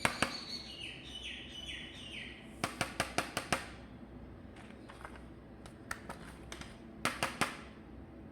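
A Spider-Man electronic toy's sound effect: a run of short chirping tones stepping down in pitch, ending about two seconds in. Then sharp plastic clicks, about seven in quick succession, and another short cluster near the end.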